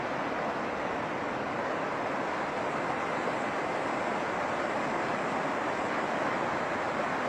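River in flash flood, its swollen, turbulent water rushing past in a steady, unbroken noise.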